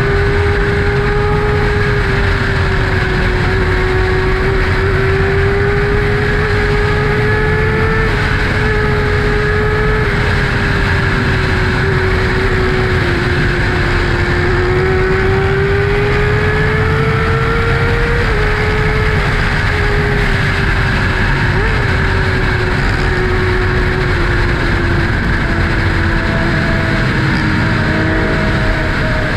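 2012 Kawasaki ZX-6R's inline-four engine breathing through an M4 Tech 1 aftermarket exhaust, running at a steady cruise with its pitch drifting slowly up and down. Heavy wind rush over the microphone runs underneath.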